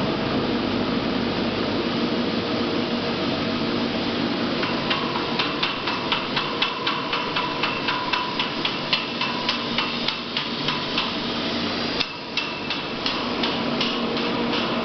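Steady industrial machine noise in an aluminium casting and rolling plant, with a run of rapid sharp metallic knocks, about three a second, starting about five seconds in; the sound breaks off abruptly near the end and the knocking resumes.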